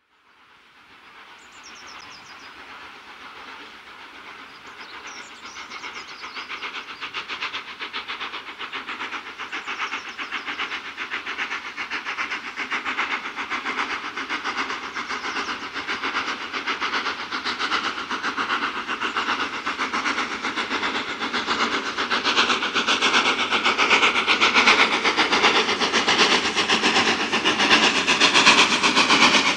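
Steam locomotive working a passenger train, its exhaust beating rapidly and evenly and growing steadily louder as it approaches.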